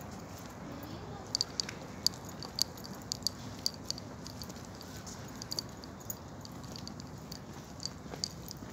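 Outdoor ambience: a steady low background hum with scattered short, high clicks or chirps, most of them between about one and four seconds in.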